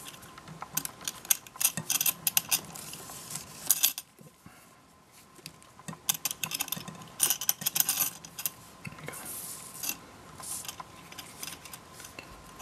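A leather camera hand strap and its metal D-ring and strap holders being handled and threaded: scattered light clicks, clinks and rustles, with a quiet pause about four seconds in.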